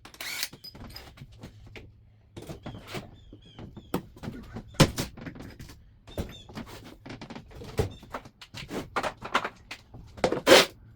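Scattered metallic clinks and knocks of hand tools and engine parts being handled during an engine teardown, with a louder clank about five seconds in and again near the end.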